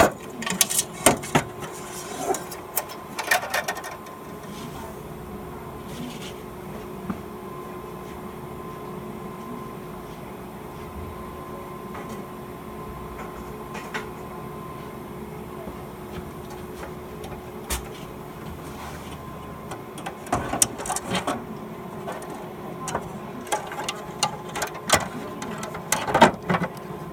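Scattered clicks and clinks of hand work with small screws and tools, busy in the first few seconds and again over the last several, with a few single clicks in between. A steady faint hum runs underneath.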